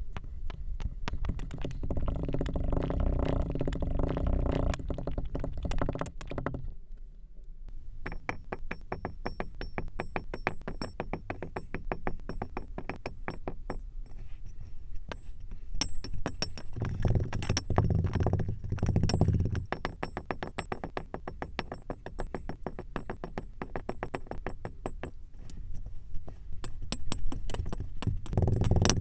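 Background music led by a synthesizer, with a fast ticking beat; it thins out briefly about seven seconds in.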